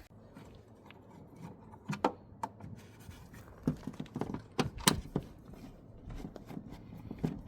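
A handful of separate light knocks and clunks, spread over several seconds, from handling the newly test-fitted compressor fridge in its cupboard.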